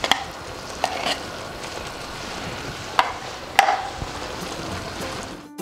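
Beef-stock soup base thickened with flour bubbling and simmering in a pan, with a few sharp clinks from a metal spoon as tomato paste is scraped into it. Music starts right at the end.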